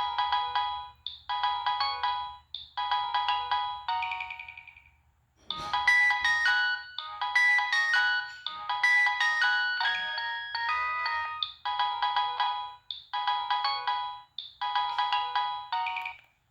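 A preloaded ringtone playing on a Nokia 6015i mobile phone: a synthesized melody with several notes at once. A short phrase repeats about every second and a half, then a busier passage follows a brief pause about five seconds in. The short phrase returns and the tone stops just before the end.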